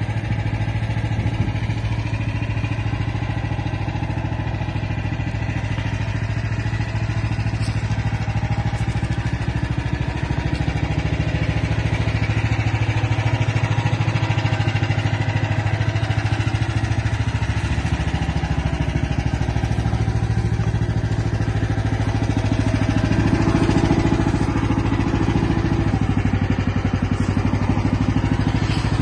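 The small recoil-start engine of an ONJ MB1500 mini excavator running steadily. Its note shifts briefly about eighteen seconds in and grows slightly louder around twenty-four seconds in.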